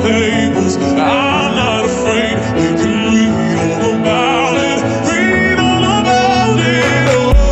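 Background pop music with a sung vocal melody over sustained chords. The drum beat drops out and comes back near the end.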